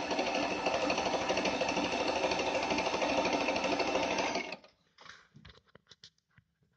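Pfaff 294 sewing machine running steadily at speed, stitching through fabric with a fast, even needle rhythm. It stops abruptly about two-thirds of the way through, followed by a few faint clicks.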